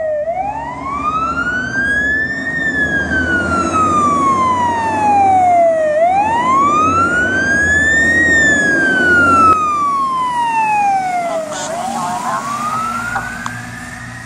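Fire engine's siren on a slow wail, each sweep rising for about two and a half seconds and falling for about three, over the rumble of the truck's engine. It grows louder as the truck approaches and fades near the end as it moves away.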